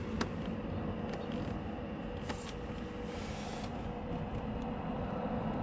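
Steady workshop background hum with a faint held tone, and a few brief light scrapes and rustles as the handheld camera is carried across the engine bay.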